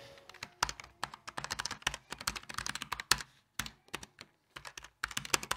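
Fast, irregular typing on a Logitech G915 low-profile mechanical keyboard with brown tactile switches: a quick clatter of key clicks, with a brief pause a little past the middle before the typing picks up again.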